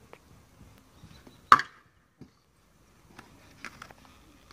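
A stunt scooter clacks sharply on the concrete of a skatepark bowl about a second and a half in, then a few lighter knocks follow.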